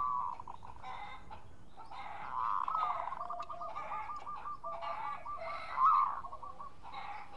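Zebra dove (perkutut) cooing. There is a short coo at the start, then from about two seconds in a longer song that rolls into a quick series of short repeated coo notes, with the loudest coo about six seconds in followed by a brief trill.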